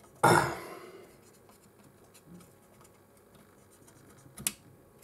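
A short, loud scratchy scrub on the circuit board about a quarter second in, then faint handling and one sharp click near the end.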